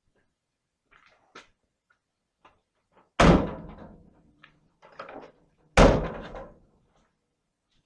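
Truck door of a 1981 GMC C10 square body slammed shut twice, about two and a half seconds apart, each a heavy metal thunk with a short rattling tail; a few faint clicks before the first.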